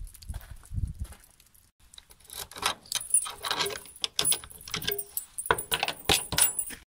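Boots thump on wooden steps at the start, then a bunch of keys jangles and clicks against a metal padlock as it is unlocked on a steel door hasp, with a rapid run of small metallic clicks and rattles.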